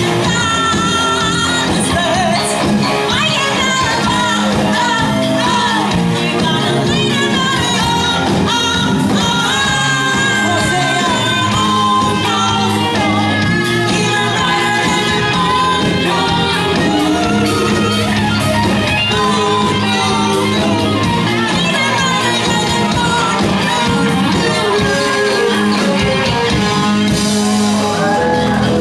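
Live band playing a pop-rock song with a lead singer and electric guitar, loud and steady throughout.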